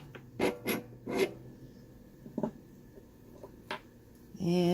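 A series of short metal clicks and scrapes, about six over four seconds, as the standard vise jaw is taken off a Framon #2 key-cutting machine.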